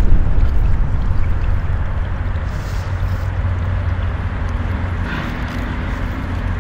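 A deep, steady rumble that fades down over the first couple of seconds and then holds level.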